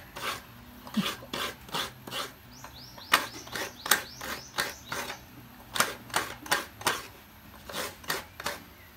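Coconut meat being grated by hand from a coconut half: a quick, uneven run of short rasping scrapes, about two to three a second.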